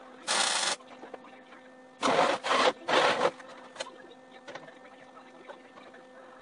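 MIG welder arc crackling for one short tack weld, about half a second long, just after the start. About two seconds in come three short, rougher bursts of noise on the steel, with a steady hum and a few light clicks underneath.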